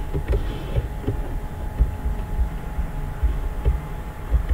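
Steady electrical hum with irregular low thumping and a few faint clicks; no speech.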